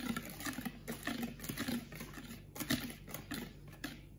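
A wire whisk stirring a thick batter of whipped eggs, sugar and melted margarine in a bowl: uneven, repeated swishing strokes with light clicks of the wires against the bowl.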